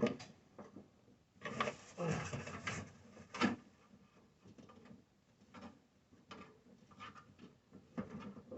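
Rustling and small clicks of hands working a car antenna mount and its rubber grommet into place, with a sharper click about three and a half seconds in.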